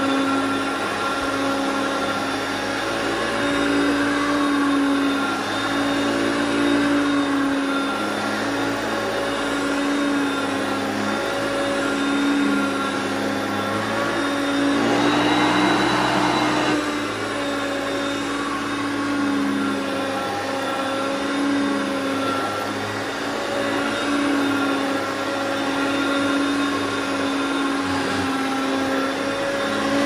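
Hoover Concept One upright vacuum cleaner running on a rug, a steady motor hum and whine that wavers slightly as it is pushed back and forth. A brief louder rush of air comes about halfway through.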